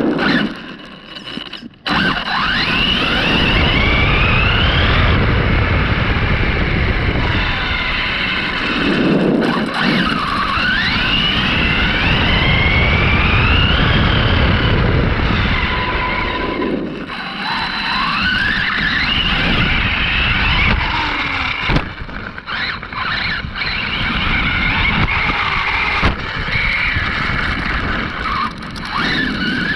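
Arrma Kraton 6S RC monster truck's brushless motor and drivetrain whining, the pitch climbing again and again as it accelerates, over a steady rumble of tyres on the road surface. The sound drops away briefly a few times when the throttle is let off.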